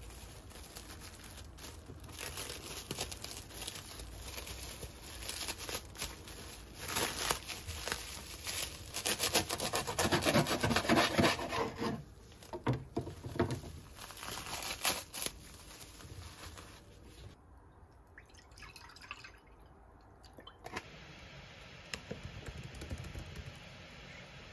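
Plastic cling film crinkling and crackling as it is pulled and pressed around a sandwich, loudest about halfway through and quieter after that.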